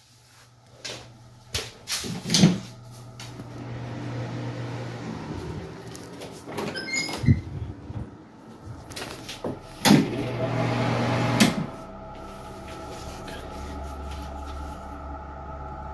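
A series of knocks and bangs in a small room, loudest about two and a half seconds in and again near ten and eleven and a half seconds, over a low steady hum. From about twelve seconds a steady low drone with a higher held tone sets in.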